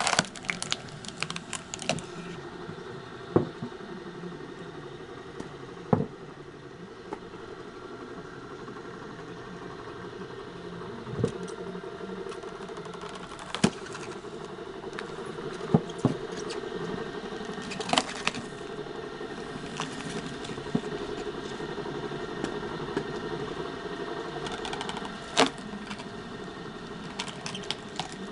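Homemade screw-cone log splitter running: the belt drive and 3 kW electric motor hum steadily while the spinning threaded cone bores into logs, with a sharp crack or knock every few seconds as the wood splits.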